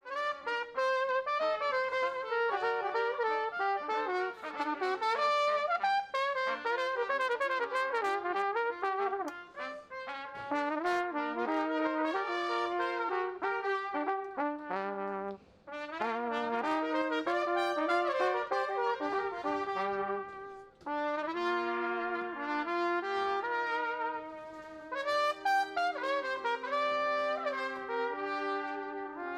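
Small brass ensemble led by trumpets playing a lively piece in several parts, starting abruptly, with brief breaks about halfway and two-thirds of the way through.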